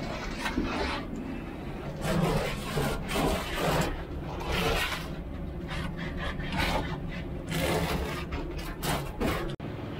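A hand tool rasping against the wooden edge of a window opening in OSB panelling, in uneven strokes a little over one a second.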